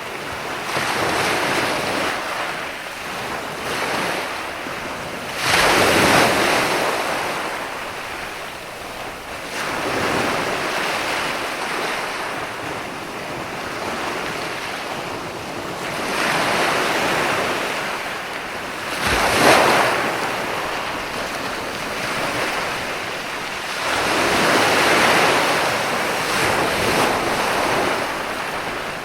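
Ocean waves breaking and washing up on a shore, the surf swelling and falling back every few seconds, with two sharper crashes about six and twenty seconds in. Some wind noise on the microphone.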